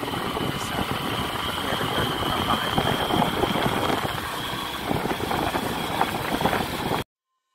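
Engine of an open-sided motor vehicle running steadily while riding along a road, mixed with road and wind noise and a thin, steady high whine. The sound cuts off abruptly near the end.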